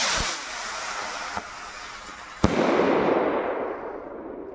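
Jorge 'Mistrzowie Ognia' 29 mm firework rocket launching with a rushing whoosh. About two and a half seconds in it bursts with a sharp bang, followed by the loud fizzing crackle of its flickering gold glitter stars, which fades away with echo.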